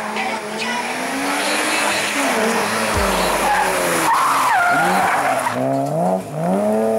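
BMW E30 325i rally car's straight-six engine passing at speed, its pitch repeatedly dropping and climbing through gear changes as it brakes for the corner and accelerates away. Near the end the revs climb again as the car slides onto loose gravel with tyre noise.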